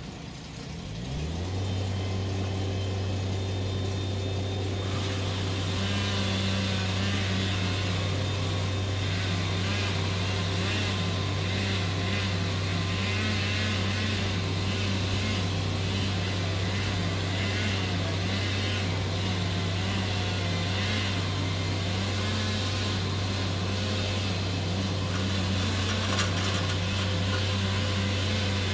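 A large machine engine speeds up about a second in, then runs steadily at a constant high speed; a second engine note wavers up and down through the middle.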